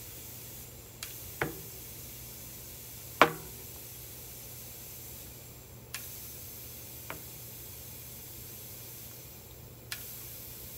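Tubeless mountain-bike tire being inflated from an air compressor: air hissing steadily into it while the tire beads snap onto the DT Swiss hookless rim in a series of sharp pops. The loudest pop comes about three seconds in, with smaller snaps before and after it.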